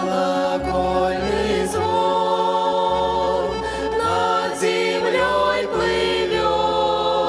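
A vocal ensemble singing in chorus over an instrumental accompaniment that holds sustained low bass notes, changing every second or so.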